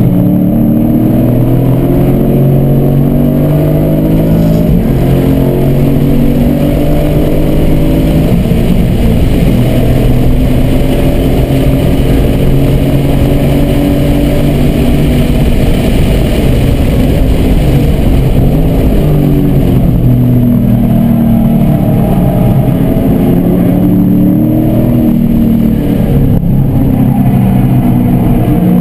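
Car engine at full race pace, heard from inside the cabin: it revs up through a run of upshifts onto a long straight at high speed, then its pitch falls in steps as it slows and downshifts for a corner, and it climbs again near the end.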